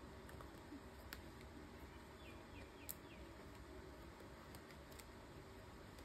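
Near silence with a few faint light clicks and small ticks from handling the paper card and adhesive faceted gems.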